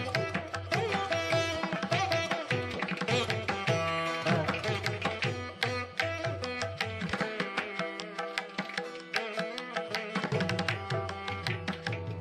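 Instrumental background music with a drum rhythm under a melody. The low drum part drops out about seven and a half seconds in for roughly two seconds, then comes back.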